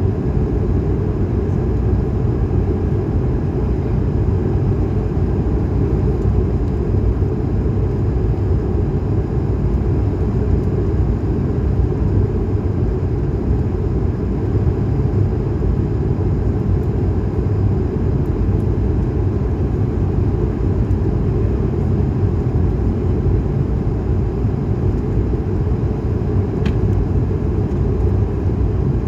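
Loud, steady engine rumble of a jet airliner in flight, heard inside the cabin by a window seat, deep and unchanging.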